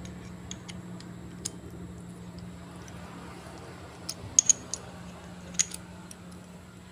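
Metal clicks of a socket being fitted onto a Sata 1/2-inch ratchet's square drive with the quick-release button pressed: a few sharp clicks, most of them between about four and six seconds in, over a faint steady hum.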